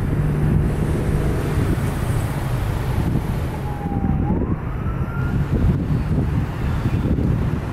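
Steady low rumble of a fire engine's diesel running at the scene, with wind noise on the microphone. A distant siren is heard faintly about three and a half seconds in, dipping and then rising in pitch.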